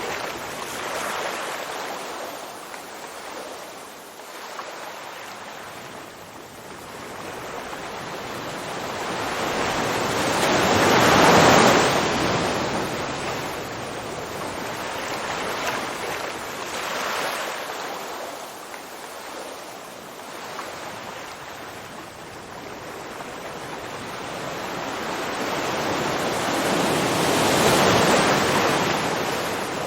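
Ocean surf: waves slowly building and washing in, with a steady rushing wash between them. The two biggest waves come about eleven seconds in and near the end.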